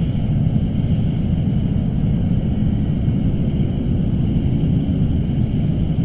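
Suspense ambience sound effect: a steady, low rumbling drone that holds unchanged, with a faint high hum above it.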